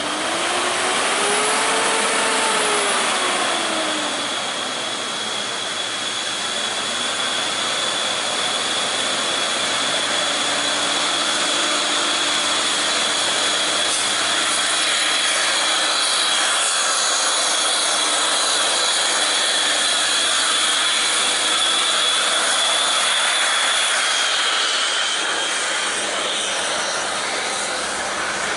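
Heavily loaded Mercedes-Benz Axor tractor-trailer's diesel engine labouring up a steep climb, still short of the power to take it easily. The engine pitch rises and falls over the first few seconds, then holds steady, with a high steady whine over it that dips near the end.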